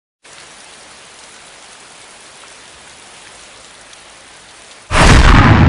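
Steady crackling hiss of an old-film countdown leader sound effect, then about five seconds in a sudden loud, deep boom that dies away slowly.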